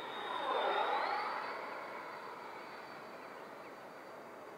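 Freewing 90 mm F-18's electric ducted fan on a pass: a rushing whoosh that swells to about a second in, then fades as the jet moves away, over a steady high whine that steps up in pitch about a second in.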